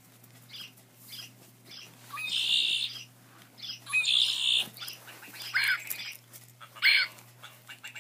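A series of short recorded bird calls and squawks, played one after another from plush toy birds' built-in sound boxes as they are squeezed; two longer buzzy calls come about two and four seconds in.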